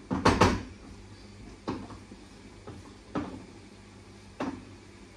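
Kitchen utensils and dishes knocking at the stove: a short clatter just after the start, then single sharp knocks about a second and a half apart, over a low steady hum.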